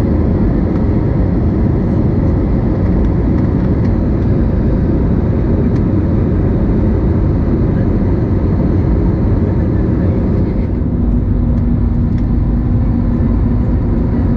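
Steady in-flight cabin noise of an Airbus A320neo heard from a window seat over the wing: a deep, even rumble of engine and airflow. About ten seconds in the sound shifts and a steady hum comes in, with the aircraft low on its approach.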